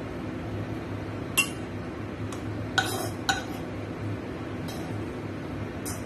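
A utensil clinking and scraping against a non-stick wok as fried rice is emptied out of it: a few short sharp taps, the loudest about a second and a half and three seconds in, over a steady low hum.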